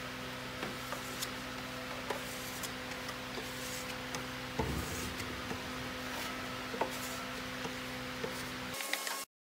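Faint rubbing and dabbing of a small pad applying black coating along the edges of a plywood speaker cabinet, with scattered light ticks and a soft thump about four and a half seconds in, over a steady low electrical hum.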